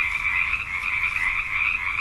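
A dense chorus of many frogs calling together, a steady, unbroken trilling wall of sound.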